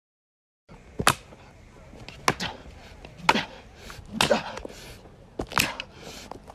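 A series of sharp knocks or taps, roughly one a second, over a faint background hiss.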